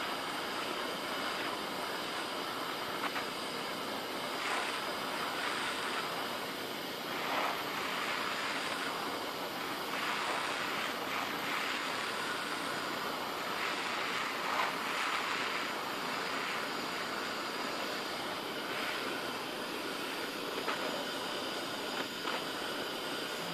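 Handheld gas torch burning with a steady hiss, its blue flame heating a steel reciprocating saw blade for heat treating.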